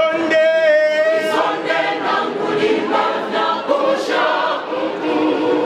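Church choir singing together in harmony, opening on a long held note before the voices move on through the phrase.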